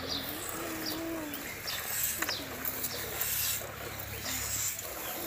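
A cow being milked by hand: milk squirting into a metal pail in repeated short hissing streams. A bird is cooing in the background with a low, wavering call.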